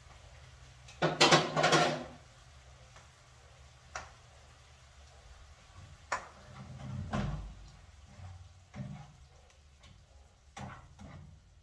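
Kitchen clatter of dishes and utensils being handled at the stove and sink: a loud rattling clatter about a second in, then scattered knocks and clicks.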